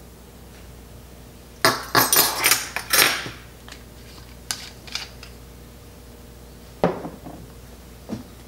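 Metal tablespoon clinking and clattering against hard kitchen surfaces in a quick run of sharp, ringing clinks a couple of seconds in, followed by a few lighter single clicks and taps as the soy sauce bottle is capped and the pork container is handled.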